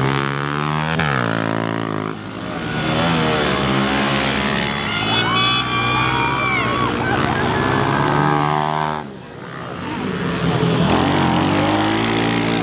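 Pit bikes racing by on a dirt track, their small single-cylinder engines revving up and down, with the pitch dropping as a bike passes close about a second in.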